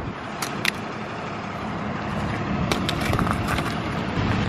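A vehicle engine running steadily, with a few light clicks about half a second in and a cluster of them around three seconds in.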